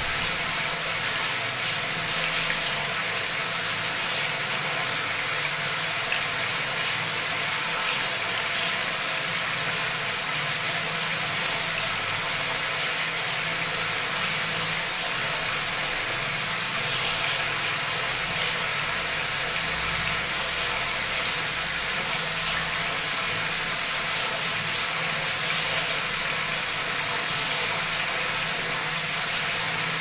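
Tap water gushing at full flow into a brimming tiled bathroom water tub, plunging into the surface and spilling over the rim: a steady rushing and splashing.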